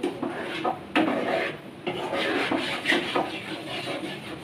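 Metal spatula scraping and stirring chhana in a frying pan in irregular strokes, with a sharp click about a second in, as the chhana is worked into a paste for sandesh.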